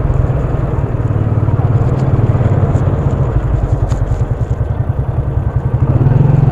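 Motorcycle engine running at low speed with an even low pulse; it grows louder about six seconds in.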